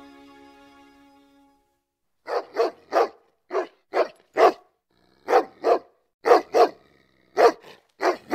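A dog barking: about a dozen short, sharp barks, many in quick pairs, starting about two seconds in after the song fades out.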